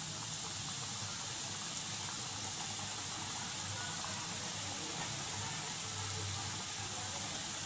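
Flour-coated chicken popcorn deep-frying in hot oil: a steady, even sizzle with faint crackles.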